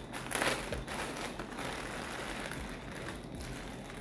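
Plastic packaging crinkling and rustling as a bundle of synthetic crochet locs is pulled out of its bag, loudest about half a second in.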